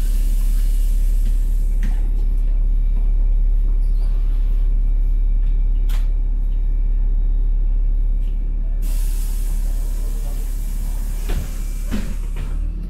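Heard from inside a LiAZ-5292 low-floor city bus standing at a stop: the engine runs with a steady low rumble, while the pneumatics give two long hisses of compressed air, one at the start and one about nine seconds in, with a few sharp clicks in between.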